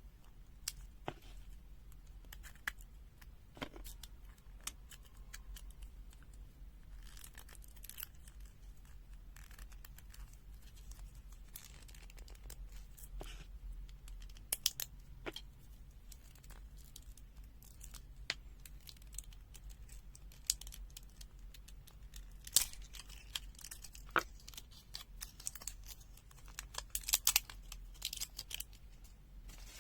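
Scattered light clicks and small plastic rattles as a compact plastic multimeter is handled and AAA batteries are fitted into its rear battery compartment, with brief busier clusters of handling noise.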